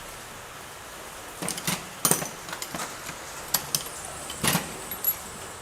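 Scattered sharp metallic clinks and taps from hand work on the engine's valve cover: bolts and tools knocking against metal, a few ringing briefly, the loudest about two seconds in and again near four and a half seconds.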